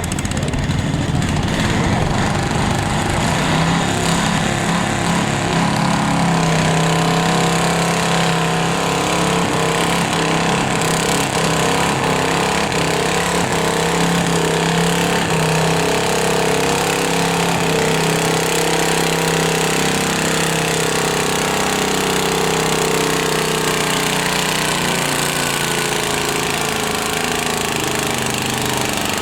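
Cub Cadet garden tractor engine running hard at steady high revs under load while pulling the weight sled.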